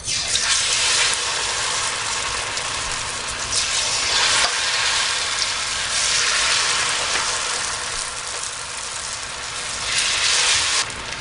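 Batter-coated cauliflower florets sizzling loudly in hot frying oil, the sizzle flaring up again each time another battered piece drops in.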